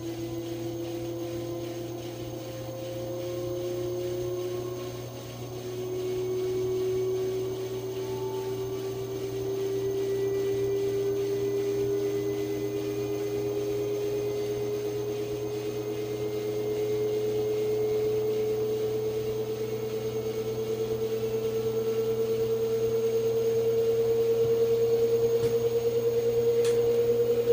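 LG washing machine on its spin cycle, giving a high whine that climbs slowly and steadily in pitch over a low steady hum. This is the new, weird noise it has started making on spin.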